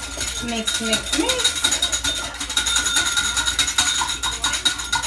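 Wire whisk beating batter in a bowl: rapid, even clicking strokes.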